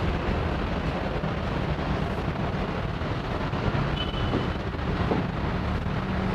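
Steady outdoor city background: a low traffic rumble with some wind noise on the microphone.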